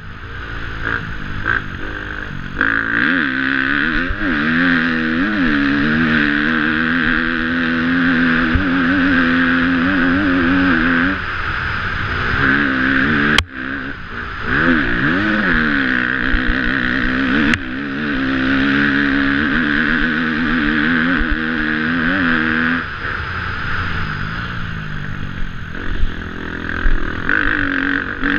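KTM 250F four-stroke single-cylinder dirt bike engine, heard up close, revving hard and dropping back again and again as the bike is ridden flat out through the gears over rough ground. Two sharp clicks break in near the middle.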